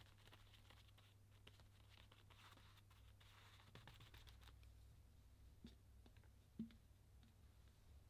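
Faint scratchy brushing of a flat bristle brush dabbing thick paint over a journal page, with many small ticks, easing off after about four seconds; a light knock about six and a half seconds in, over a low steady hum.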